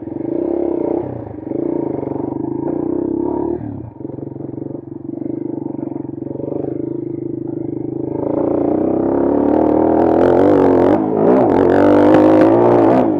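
Bashan Brozz 250 dual-sport motorcycle engine running along an off-road trail, then revving hard from about eight seconds in, its pitch swinging up and down and loudest near the end.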